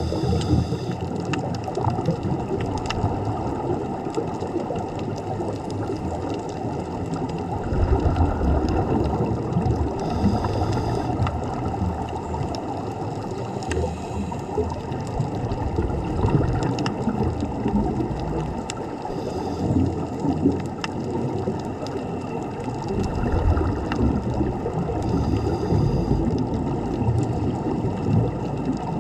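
A tugboat under way: a steady low rumble mixed with churning, gurgling water, swelling deeper now and then.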